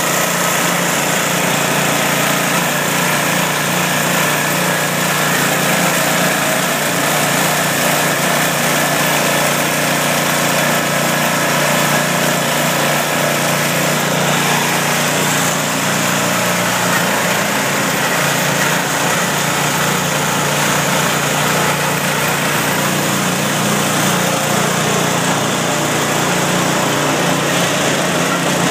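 Small engine of a motorized grape press running steadily at a constant speed, driving the press's slotted steel drum round.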